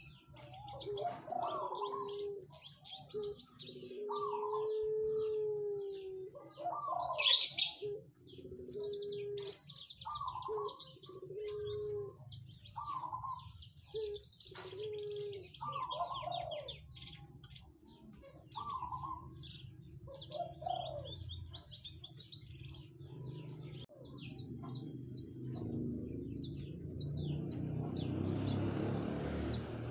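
Horsfield's bush lark (branjangan) singing a rapid, continuous stream of high chirps and trills, over repeated low, held cooing calls. A loud harsh burst comes about seven seconds in, and a rushing noise builds near the end.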